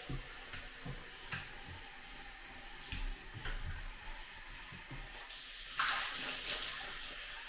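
Bathroom sink faucet running into the basin, with a few light knocks from hands and objects on the counter. About six seconds in, water poured from a plastic cup splashes loudly onto the countertop for about a second as it is rinsed.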